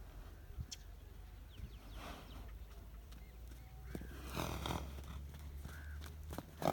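Crows cawing a few times over a low steady hum.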